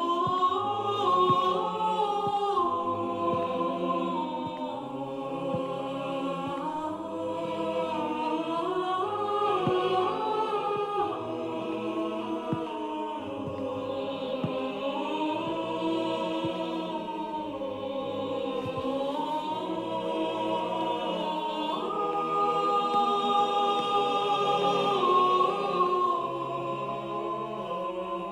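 Background music: a choir singing long held notes in slowly shifting chords.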